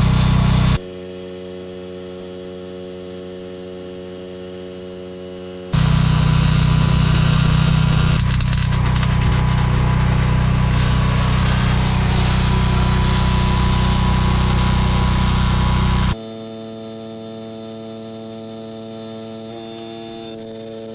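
Steady electrical hum from welding equipment, switching abruptly between a louder hum with hiss over it and a quieter hum made of several steady tones.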